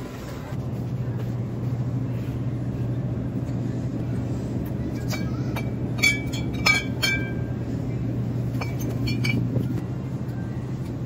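Glass beer bottles clinking together as they are handled on a store shelf: a cluster of sharp, ringing clinks about five to seven seconds in and a few more around nine seconds, over a steady low hum.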